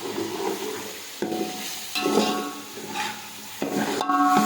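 Meat sizzling as it fries with browned onions in a cooking pot, while it is stirred, scraping against the pot a few times. This is the browning stage of a biryani's meat-and-onion base.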